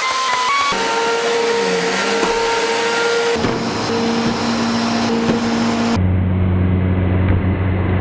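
Eureka upright vacuum cleaner running on carpet: a steady motor whine over the rush of airflow. The sound shifts abruptly about three and a half seconds in, and again at six seconds to a deeper, heavier hum.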